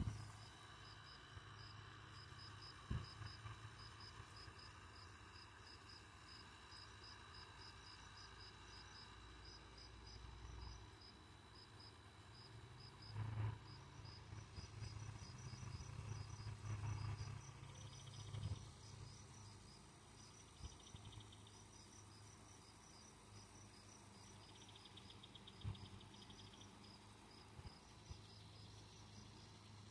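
Crickets chirping in a steady, even pulse, quiet overall, over a faint low hum, with a few soft bumps.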